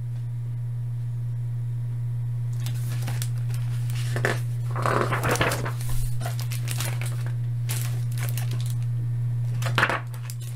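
Pages of a hardcover picture book rustling and flapping as they are turned and handled, in irregular bursts that start a few seconds in, over a steady low hum.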